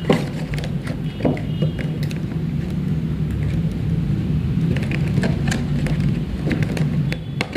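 Box being handled: a few scattered knocks and rustles, one right at the start, one about a second in, several around five seconds in and one near the end, over a steady low hum.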